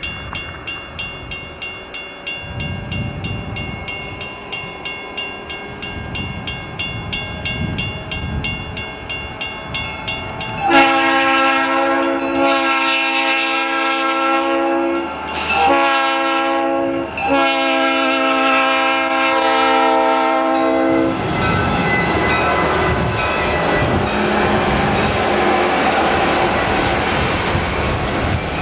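Burlington Northern freight train's diesel locomotives approaching with a rhythmic rumble, then the locomotive's multi-tone air horn sounds three blasts, long, short, long, from about ten seconds in. After the horn, the train passes with a steady roar of engines and wheels.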